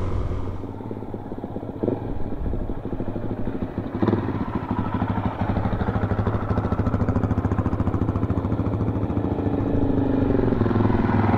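Dirt bike engine idling with a steady rapid putter, while a second dirt bike rides up and grows a little louder toward the end.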